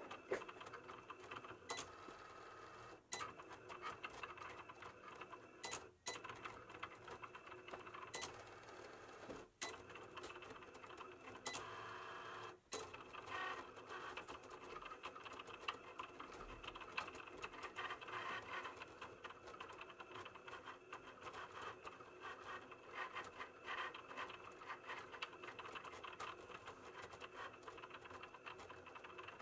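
Cricut cutting machine cutting out a printed design on its mat: the carriage and mat-roller motors whir and stutter as the blade head moves back and forth, with a few short pauses in the first half.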